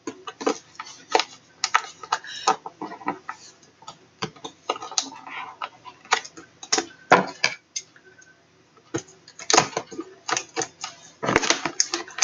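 A large cardboard box and its packaging being pulled and worked open by hand: irregular crackles, clicks and knocks, with a short lull and then a thicker run of crackling near the end.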